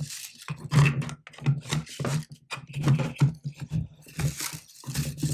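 A plastic filament spool on a metal rod being handled and fitted into an acrylic spool holder: a run of irregular clicks, knocks and scraping of plastic on plastic.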